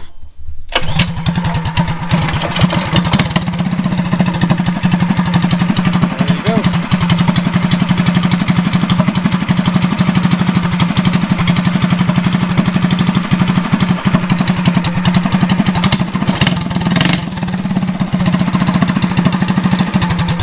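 Predator 212 single-cylinder four-stroke engine, stage 1 with a governor bypass, starting up less than a second in and then running steadily with a fast, even firing beat.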